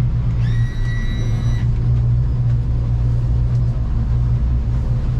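Yamaha F300 V6 four-stroke outboard running steadily at low speed as the boat backs up. A single high electronic beep lasts about a second near the start.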